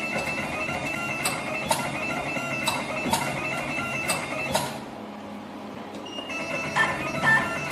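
Automatic wire stripping and twisting machine running after being started: a steady high whine with sharp clicks, mostly in pairs. It pauses briefly about five seconds in, then starts up again.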